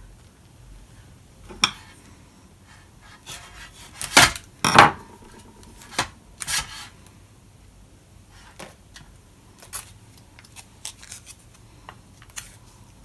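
A spoon scraping and knocking inside an MRE food pouch and against a plastic bowl as beef goulash is scooped out. Two sharp knocks about four seconds in are the loudest, and lighter clicks and scrapes follow.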